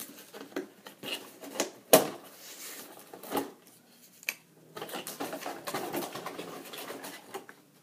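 Cardboard box and packaging being handled and opened by hand: scattered knocks, scrapes and crinkles, the sharpest about two seconds in and again a little later, then a longer stretch of rustling about five seconds in.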